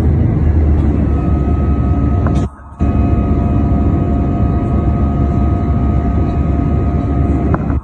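Jet airliner cabin noise during climb-out, heard from a window seat beside the turbofan engine: a loud, steady rumble with a faint steady whine over it. The sound drops away briefly about two and a half seconds in.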